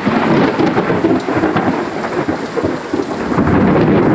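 Rolling thunder rumbling on without a break after a lightning flash, swelling a little near the end, with a hiss of rain beneath it.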